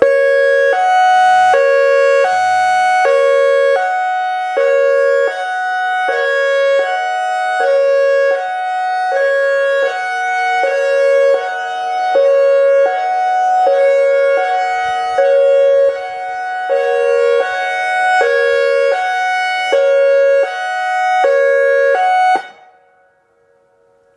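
ACA Alertronic AR-1600 electronic outdoor warning siren sounding a hi-lo signal, two pitches alternating back and forth. It cuts off suddenly near the end.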